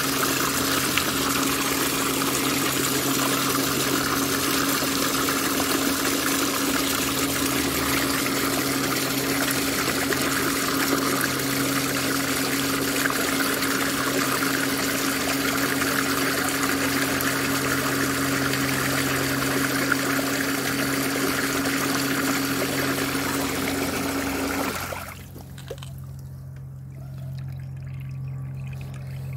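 Waste water from a Bestway sand filter's flushing pours from a hose into a half-full plastic tub, a steady splashing gush over the low hum of the filter pump. About 25 seconds in, the water stops and the pump hum carries on alone.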